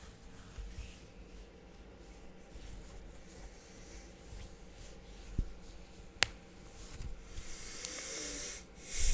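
Low background noise with two sharp clicks, about five and six seconds in, and a soft breathy hiss near the end.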